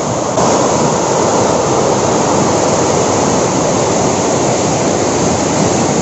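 Waterfall in heavy flow, water pouring over rock ledges in a steady rush.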